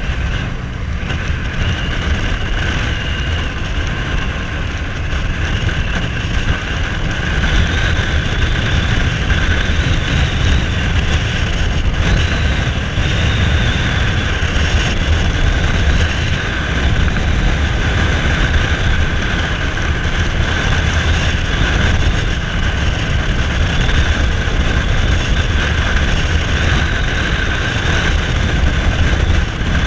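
Cruiser motorcycle riding along at a steady speed: the engine runs under a dense, steady rumble of wind rushing past the rider.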